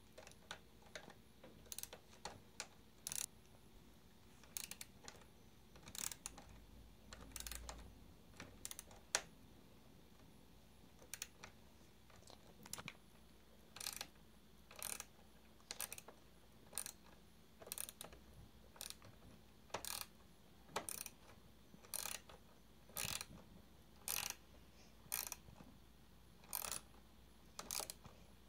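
Small hand ratchet wrench clicking as it is swung back and forth, loosening a screw on an RC truck's steering upright. The clicks are irregular at first, then settle into a steady rhythm of about one short burst a second.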